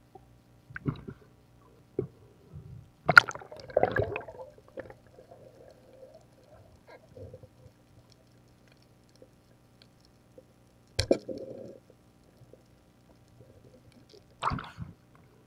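Underwater knocks and gurgling water, muffled as heard by a camera under the sea: a few short bursts, the loudest about three to four seconds in, another at eleven seconds and one near the end, over a faint steady hum.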